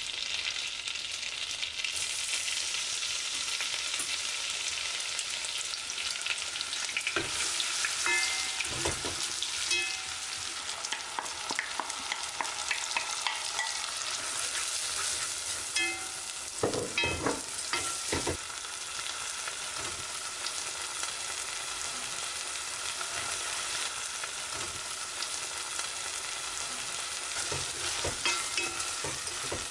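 Chopped onion and rice sizzling in oil in a saucepan as the rice is toasted for risotto, with steady frying hiss throughout. Clusters of knocks and scrapes from the rice going in and the wooden spoon stirring against the pot come about seven seconds in and again around seventeen seconds.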